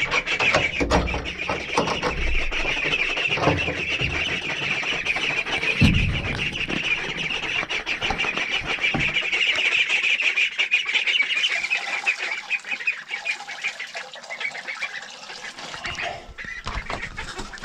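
A box of month-old ducklings peeping constantly, many high chirps overlapping, thinning out after about twelve seconds, with a few low thumps.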